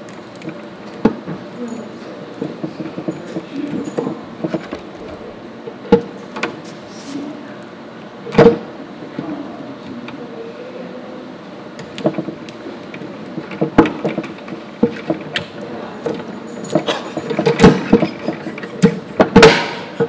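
Lock pick and tension wrench scraping and clicking inside a padlock, with small metallic rattles of the lock; the clicks and rattles come thicker and louder near the end as the padlock is picked open.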